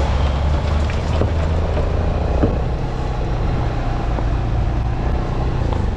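A motor vehicle's engine running steadily, with a strong low hum under a wide noisy rush.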